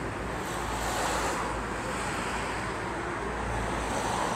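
Steady rumble of road and wind noise from a moving car.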